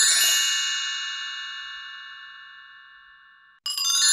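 Logo-intro sound effect: a bright, high bell-like chime rings out and fades slowly over about three seconds. It cuts off, and the same chime strikes again near the end.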